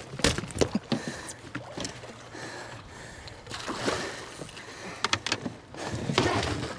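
Water splashing and sloshing beside a boat's hull as a hooked jack crevalle thrashes at the surface, with a few sharp knocks near the start and again about five seconds in.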